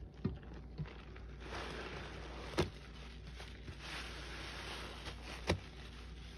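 Sponge soaked with Lime Ajax lather squeezed and kneaded by gloved hands in a metal bowl: continuous wet squishing and crackling foam, with two sharp pops, one about two and a half seconds in and one about five and a half seconds in.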